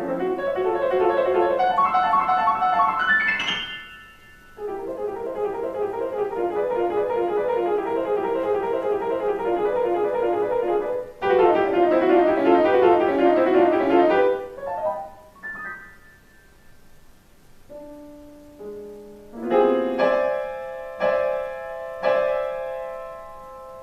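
Solo piano playing fast, busy passages with a brief break about four seconds in and a loud stretch around the middle. It then thins to slower, separate chords that ring out.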